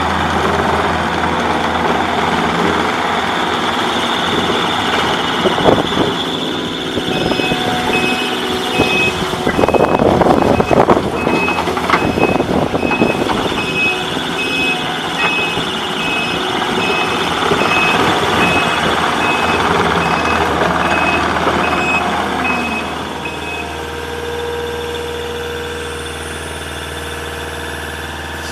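A Takeuchi TL240 compact track loader's diesel engine running and driving, with its reversing alarm beeping steadily for most of the middle stretch and a louder clatter around ten seconds in. Near the end the alarm stops and the engine settles back to a quieter idle.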